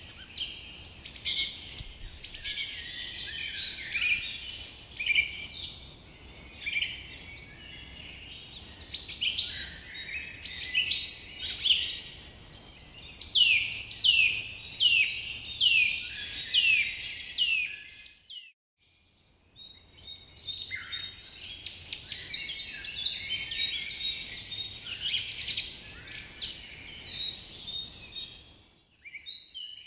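Many birds chirping together in a dense chorus of quick, high, downward-sweeping calls. The chorus cuts out for about a second two-thirds of the way through, then resumes.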